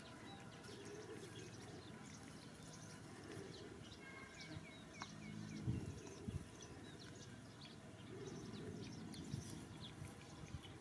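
Small birds chirping again and again over a low rustle outdoors, with a short run of four quick chirps about four seconds in. A few dull low knocks come about halfway through.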